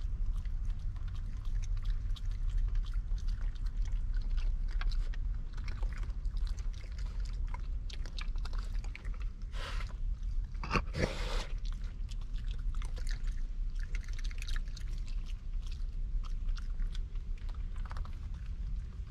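Raccoons chewing and crunching peanuts, with many small crackling bites and clicks, and a louder scraping burst about ten seconds in.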